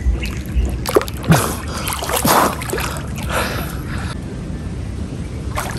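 Water splashing and sloshing in irregular bursts as a man swims and moves through river water.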